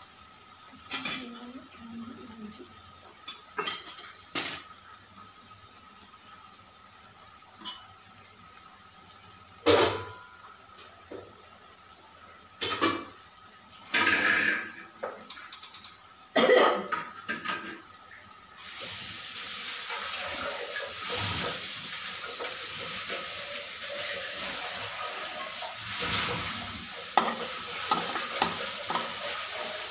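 Cooking in a kadai: scattered clinks and knocks of utensils against the pan, then from a little past halfway a steady sizzle as the onion-tomato masala fries. Near the end a slotted spatula scrapes and stirs the masala around the pan.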